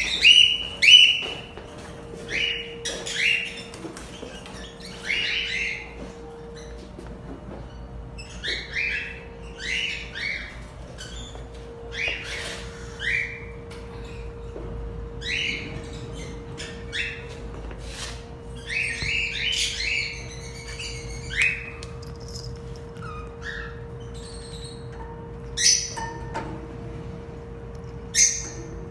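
Caged parrots calling over and over in short calls that drop in pitch, bunched in clusters, the loudest about a second in, over a steady hum.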